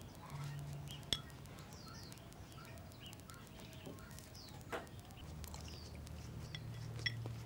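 Small birds chirping over and over in short falling chirps, with a few clinks of chopsticks against a porcelain bowl while eating: a sharp clink about a second in, a duller knock midway, and another clink near the end.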